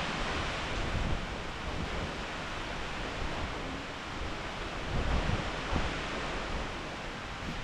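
Steady outdoor hiss with wind buffeting the microphone, the low rumbling gusts strongest about five seconds in.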